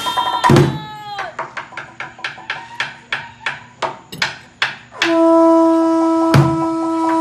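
A splash with a falling shout in the first second, then a quick steady drumbeat, then about five seconds in a loud horn blown in one long steady note, with a single sharp strike during it.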